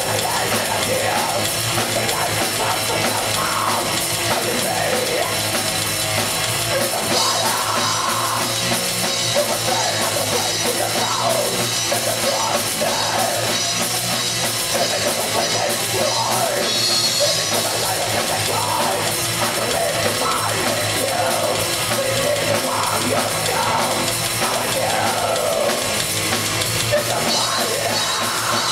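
Live heavy metal band playing: distorted electric guitar, bass guitar and a drum kit with crashing cymbals, heard loud through a camera microphone in the club.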